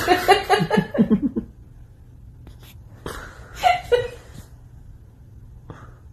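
A person laughing in quick, breathy pulses for about a second and a half, then another short burst of voice about three and a half seconds in.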